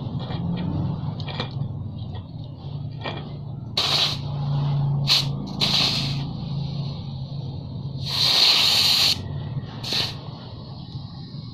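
Compressed air hissing from an air chuck in five short bursts as it is pressed onto a scooter tyre's valve stem to inflate the inner tube; the longest burst, about a second, comes about eight seconds in. A low steady hum runs underneath.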